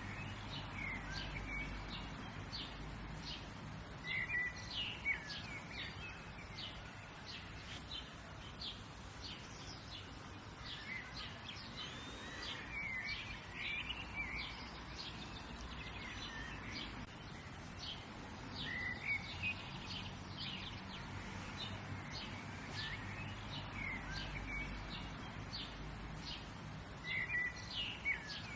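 Several wild birds chirping and singing, short chirps throughout with louder phrases of song every few seconds, over a steady low background noise.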